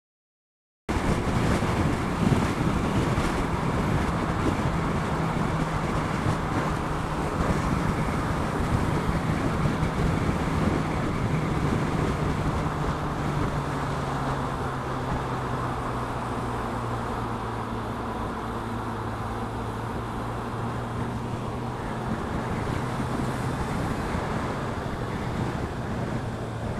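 A Suzuki Bandit 650's inline-four engine running at motorway speed under heavy wind rush over the microphone, starting suddenly about a second in. The engine note drops lower around halfway through.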